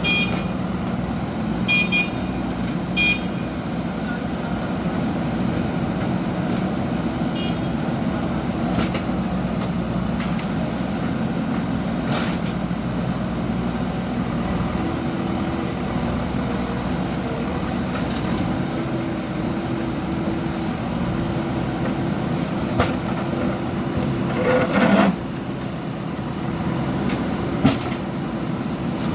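JCB backhoe loader diesel engines running steadily, with a scattering of sharp knocks and clanks; the loudest, about 25 seconds in, lasts about half a second.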